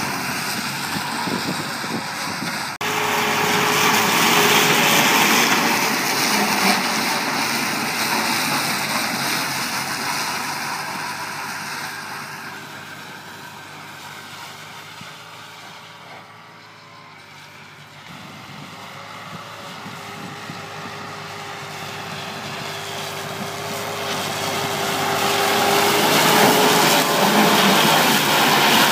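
Massey Ferguson 260 tractor's diesel engine running under load while driving a rear-mounted rotary drum mower through tall grass. The sound is loud with a steady hum, fades as the tractor moves far off midway, and grows loud again near the end as it passes close.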